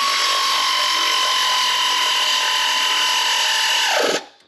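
Air ratchet running steadily with a high whine and air hiss as it drives in a bolt drawing the 4L60E transmission up against the engine; the whine winds down and stops about four seconds in as the trigger is let go.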